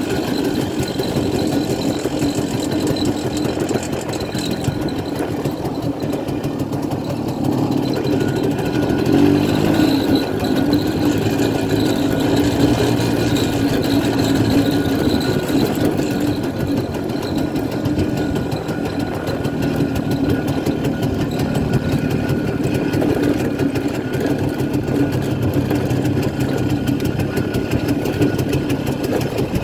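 1967 Pannonia P10's 250 cc two-stroke single-cylinder engine running as the bike rides along, its note shifting up and down a few times with the throttle.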